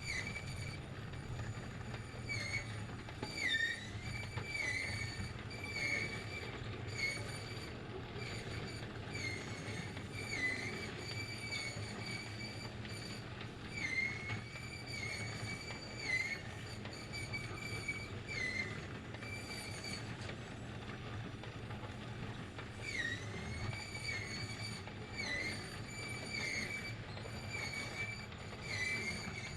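A machine hums steadily under high-pitched squeaks that repeat irregularly every second or two, each dipping briefly in pitch.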